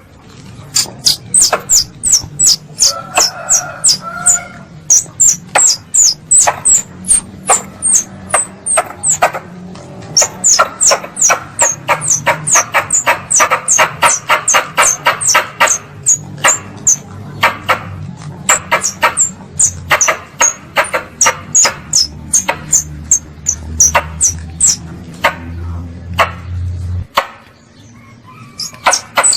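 Squirrel lure call: a long run of sharp, high chirps, each falling in pitch, about two to three a second and crowding closer together in the middle, over a low hum that stops near the end.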